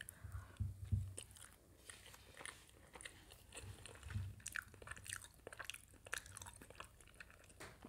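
Close-miked chewing: scattered wet mouth clicks and smacks while eating, with soft low thumps about a second in and again about four seconds in.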